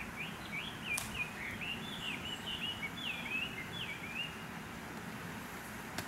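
A songbird singing a quick run of short, sliding chirps for about four seconds over steady outdoor background noise, with a sharp click about a second in.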